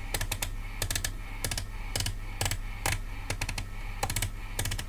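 Irregular run of short, sharp clicks, bunched several to a second in places, from buttons or keys being pressed on bench test equipment, over a steady low mains hum.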